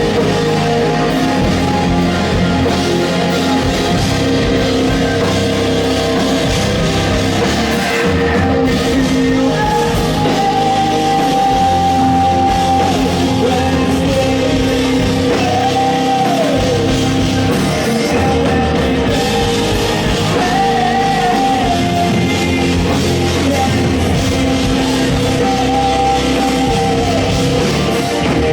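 Live rock band playing loudly: drums, distorted guitars and bass, with a held lead melody line that slides up and down in pitch in the middle.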